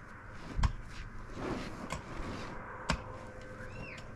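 A few sharp knocks at irregular spacing with some rustling between them; the loudest knock comes about half a second in and has a dull thump beneath it. A short rising-and-falling chirp sounds near the end.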